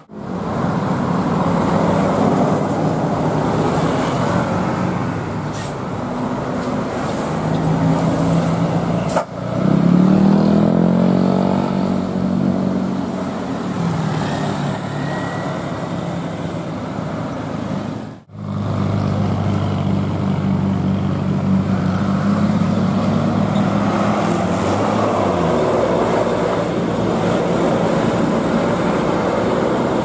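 Road traffic with bus and car engines running, in three clips joined by abrupt cuts. In the middle clip an engine note rises as a vehicle pulls away. In the last clip a steady engine hum drops away about three-quarters of the way through.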